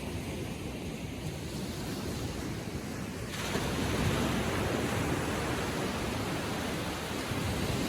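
Atlantic Ocean waves lapping gently on the shore, a steady wash of surf that swells louder about three seconds in as a wave comes up the beach.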